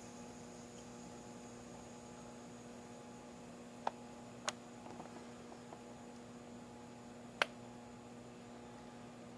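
Faint, steady electrical hum with a few short, sharp clicks in the second half.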